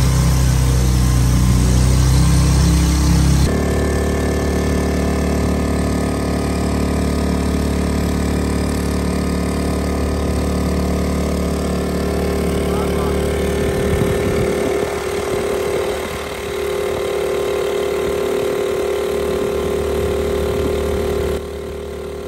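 Small petrol engine driving a long-tail boat propeller, running steadily under way. Its note changes abruptly a few seconds in and again near the end.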